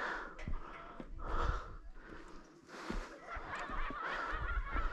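A hiker's heavy breathing while climbing uphill, a noisy breath about every second and a half, with short low thumps between the breaths.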